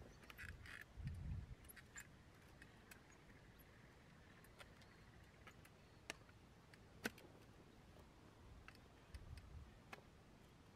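Near silence, broken by faint scattered ticks and a couple of soft low thumps from a steel shovel working loose soil around a transplanted seedling.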